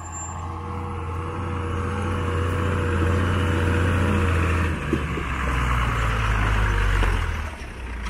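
A truck engine running close by in low gear on a rough dirt road. It grows louder over the first few seconds, its note steps down about halfway through, and it eases off near the end.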